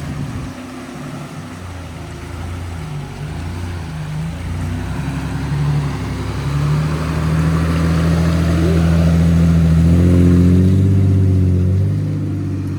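Four-wheel-drive vehicle engine working under load, its note shifting up and down in steps and growing louder to a peak about ten seconds in, then easing off.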